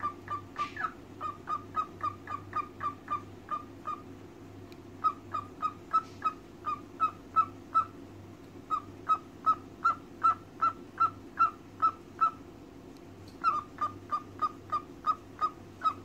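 Cockatiel calling in quick runs of short, evenly spaced single-pitched notes, three to four a second, pausing briefly between runs.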